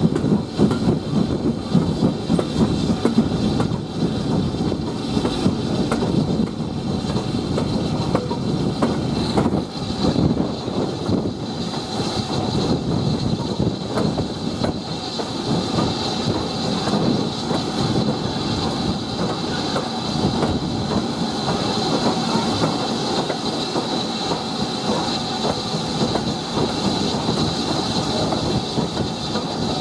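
Steam-hauled train behind a BR Standard Class 4 2-6-4T tank engine running along, heard from an open carriage window: a continuous rumble of wheels on rail with clickety-clack over the joints. A thin, steady, high-pitched hiss grows stronger in the second half.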